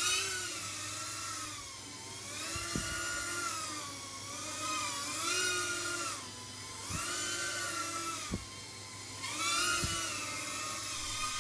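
Brushless motors and propellers of a palm-size FPV quadcopter (a Tarot120/Hermit145 hybrid) whining in flight, the pitch rising and falling with the throttle in about five surges. A few light knocks are heard along the way.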